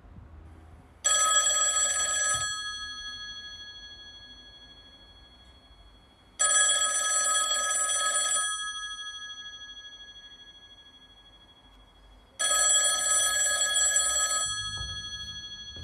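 A telephone ringing three times. Each ring lasts about two seconds and fades out slowly, with about four seconds between rings.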